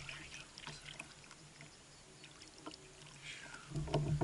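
Light clicks and knocks of an angler moving about and handling gear in a kayak, quieter in the middle, with a louder bump near the end.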